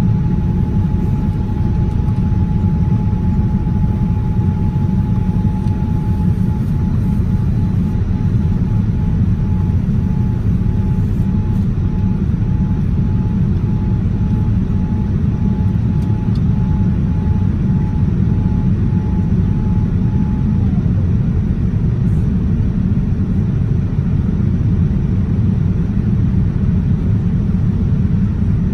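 Cabin noise of a Boeing 787-9 airliner climbing after takeoff: a steady, deep rumble of engine and airflow noise heard from a window seat over the wing. A faint high whine runs alongside, breaks into short pulses about a fifth of the way in, and stops about two-thirds through.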